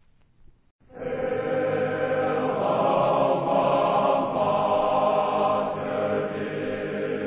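Choir singing long held chords, coming in suddenly about a second in after a faint, quiet stretch and easing off slightly near the end.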